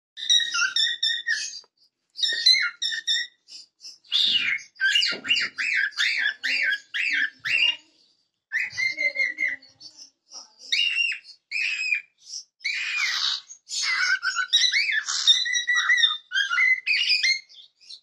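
Cockatiel singing: a string of whistled notes and chirps broken by short pauses. In the middle is a run of quick rising-and-falling whistles, about two a second.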